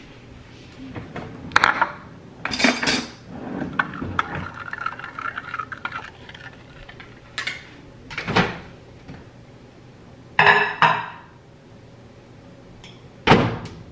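A metal spoon stirring, scraping and clinking in a ceramic bowl, with the bowl and spoon knocked against the countertop: a string of sharp clatters with softer scraping between them, the loudest knock just before the end.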